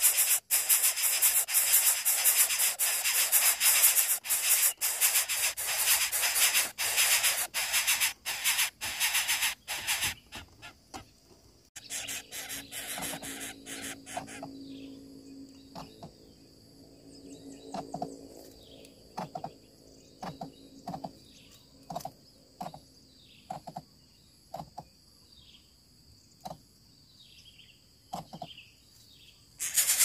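Coucal nestlings making a loud, fast rasping hiss at the nest, the begging noise made while the parent is there, which stops about ten seconds in. After that it is quieter, with short falling chirps of other birds and scattered small clicks.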